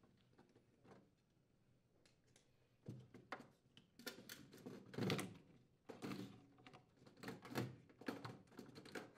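Faint irregular clicks and knocks of a furnace's plastic condensate drain trap and its hoses being handled and pulled free, starting about three seconds in.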